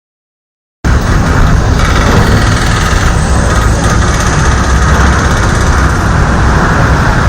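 Loud, steady motor vehicle engine and traffic noise, cutting in abruptly after silence about a second in.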